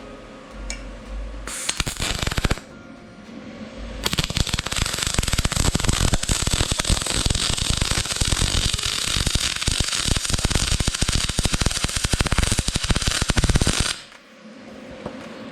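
MIG welding arc from a spool gun feeding 4043 aluminium wire at about 15.7 volts: a short crackling burst, then a steady dense crackle for about ten seconds that cuts off. The welder judges this setting a little cold and could stand more heat.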